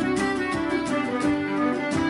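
Traditional Irish music played live by a band: a fiddle carries the melody over a rhythmic accompaniment.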